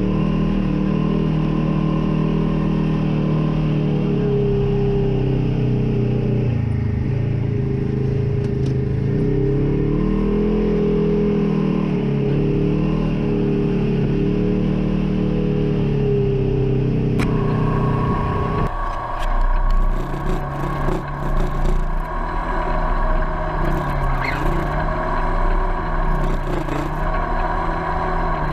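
Polaris RZR side-by-side's twin-cylinder engine running under way on a dirt trail, its pitch rising and falling with the throttle. From about 19 seconds in, wind buffets the microphone and the sound turns gustier with rattles.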